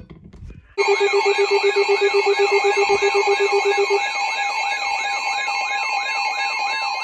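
Several emergency alert tones sounding at once, announcing a new weather warning: a warbling siren-like tone about three cycles a second over steady beeps, with a fast pulsing beep that drops out partway through. The alert starts suddenly just under a second in.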